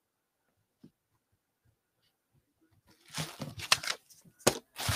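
Near silence, then from about three seconds in a run of rustles and sharp clicks and snaps from sealed trading-card boxes being handled.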